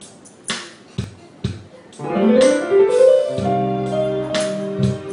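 Live band music: a few sharp drum hits about once a second, then about two seconds in an electric keyboard plays a rising run that leads into held chords over low notes.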